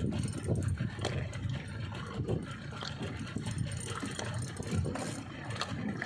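A small fishing boat's motor running steadily under way while trolling, with scattered knocks.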